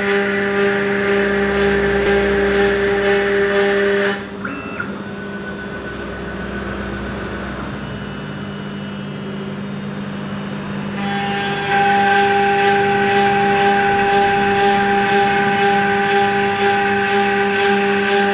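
CNC router spindle running at high speed and milling grooves into a wooden board: a steady, high spindle whine with the rasp of the bit cutting wood. It drops quieter for several seconds in the middle, then comes back up.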